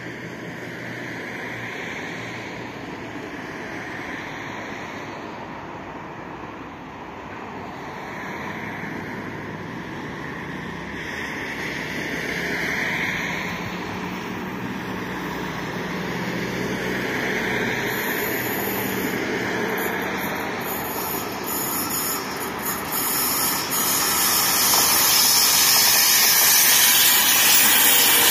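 Siemens Vectron electric locomotive hauling a passenger train, approaching and growing steadily louder, with the rushing rail noise rising sharply in the last few seconds as it draws level.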